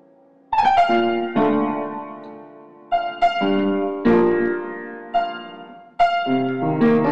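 Solo piano music: slow chords struck one after another, each left to ring and fade, coming in about half a second after a near-silent start.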